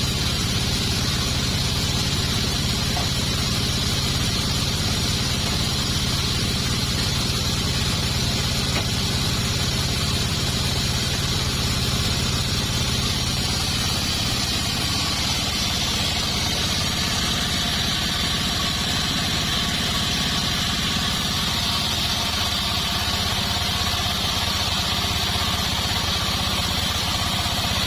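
Band sawmill running steadily: a low engine drone with a constant high-pitched hiss over it.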